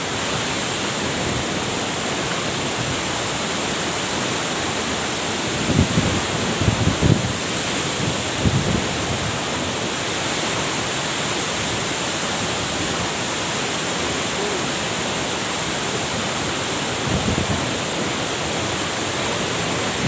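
A tall waterfall pouring onto rocks close by: a steady, even rush of falling water. A few brief low thumps break through about six to eight seconds in and again near the end.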